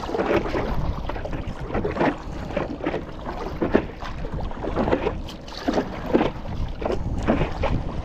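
Paddle strokes in seawater, with water splashing and slapping irregularly against the hull of a stand-up paddleboard, over a steady low wind noise on the microphone.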